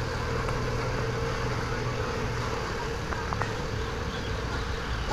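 Diesel bus engine idling: a steady low hum with an even drone above it, and a couple of faint ticks a little over three seconds in.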